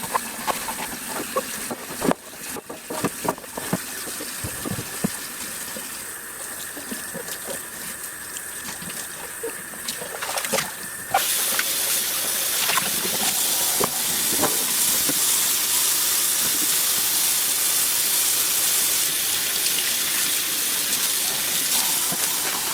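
Kitchen tap water running in the sink while the plastic tank of a pet water fountain is washed, with light knocks of plastic against the sink. About eleven seconds in, the rush of water suddenly gets louder and stays steady.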